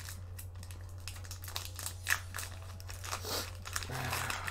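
Foil wrapper of a Pokémon Hidden Fates booster pack crinkling in the hands as it is torn open, in irregular crackles that get busier in the second half.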